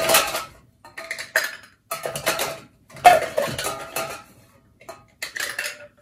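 Ice cubes being picked out of a metal ice bucket and dropped into a tall glass, clattering and clinking in five or six short bursts; the cubes are frozen together in the bucket.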